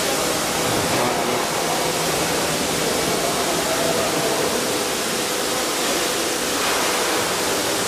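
Steady machinery noise: an even hiss with a faint hum running through it.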